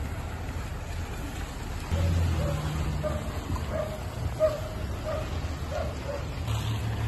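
A dog barking over and over, about two barks a second starting about two seconds in, over the low steady hum of an idling vehicle engine.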